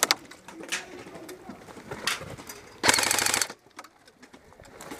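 A short full-auto burst from an airsoft electric gun, about three seconds in: a rapid run of sharp mechanical clicks lasting under a second. A few scattered single clicks and knocks come before it.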